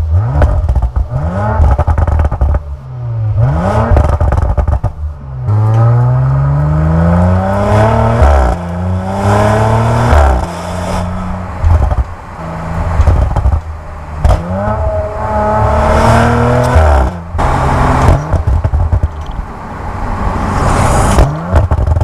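Exhaust of a 2019 Audi RS5 Sportback's twin-turbo 2.9-litre V6, heard at the tailpipe while the car accelerates. The engine note climbs in pitch several times and drops back sharply at each quick gear change, with small pops and crackles in it.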